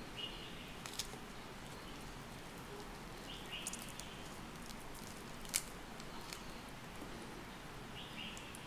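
Faint small clicks and crackles of fingers picking the white pith off a peeled orange, over a steady low background hiss; the sharpest click comes about halfway through.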